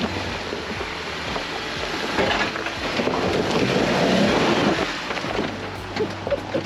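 Four-wheel-drive vehicle climbing a rocky trail hill, its engine labouring under load while the tyres grind over rock and dirt. The noise builds to its loudest about four seconds in, then eases.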